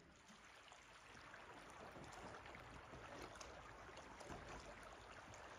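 Near silence: a faint, even hiss of flowing river water.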